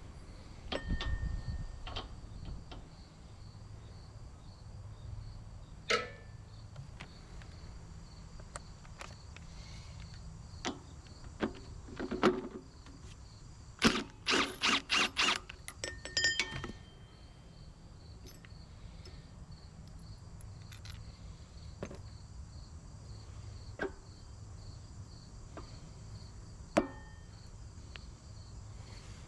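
Steady chirring of insects, likely crickets, with scattered sharp metallic clicks and knocks from hand tools working on the engine's pulley and clutch, including a quick run of about five clicks midway.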